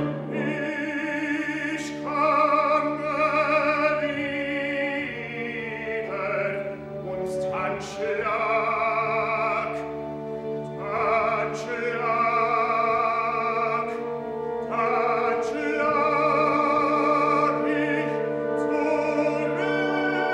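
A male operatic voice singing a solo in several long phrases with vibrato, over an orchestra holding a steady low note.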